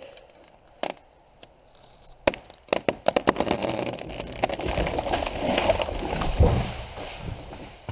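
A felled tree going over: sharp cracks and snaps of breaking wood starting about two seconds in, then a long crash of limbs and branches that builds to its loudest near six seconds in as the trunk comes down, fading near the end.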